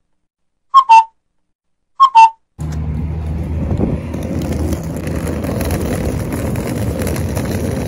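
A whistle-like two-note sound effect, high then slightly lower, repeated three times a little over a second apart with silence between. From about two and a half seconds in comes the steady noise of walking outdoors: wind rumble on the microphone over street noise.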